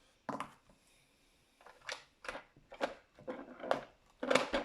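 Lego bricks clicking and clattering as a plastic puzzle box and its loose key pieces are handled: one sharp clack a moment in, then a run of quick knocks and rattles through the second half, loudest near the end.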